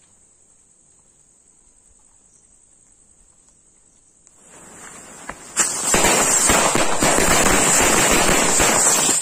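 A string of chitput firecrackers: a faint steady high insect trill at first, then a hiss swelling about four seconds in, and from halfway through a loud, dense crackle of many small bangs in rapid succession as the crackers go off one after another.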